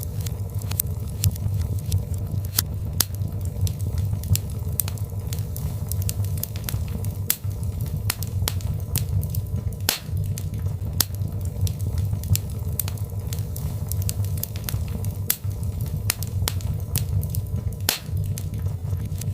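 Birch logs burning in a fireplace: frequent, irregular sharp crackles and pops over a steady low rumble of the flames.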